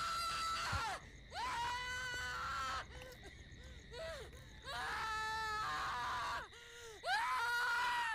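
A woman wailing in pain from labour. Long, high, drawn-out cries, each held for a second or two, come one after another with short breaks between them.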